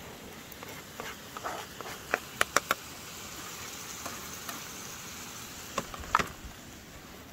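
Onions sizzling as they fry in oil in a pan, with a spatula clicking and scraping against the pan in two short spells, a couple of seconds in and again about six seconds in.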